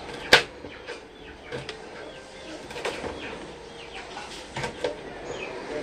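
Kitchen knife slicing a red chili on a plastic cutting board: one sharp knock about a third of a second in, then a few lighter knocks of the blade hitting the board. Birds chirp faintly in the background.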